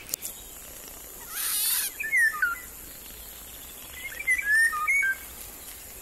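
Songbirds whistling in short gliding notes: one falling whistle a little over two seconds in, then a cluster of short whistles about four to five seconds in. A brief rustle about a second and a half in.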